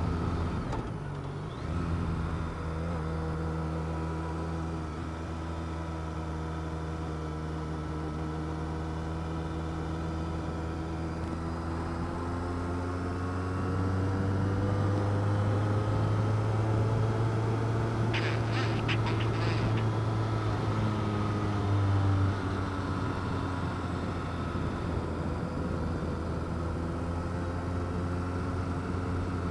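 Motorcycle engine running at road speed, a steady engine note. About halfway through it grows louder and its pitch rises slowly, then drops abruptly a few seconds later.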